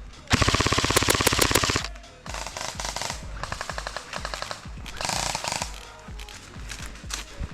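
Airsoft guns firing on full auto: one long rapid burst of about a second and a half near the start, then several shorter bursts.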